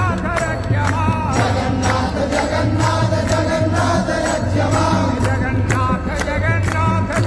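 Devotional Jagannath bhajan played as a ringtone: voices singing a chant-like melody over a steady percussion beat and a pulsing bass line.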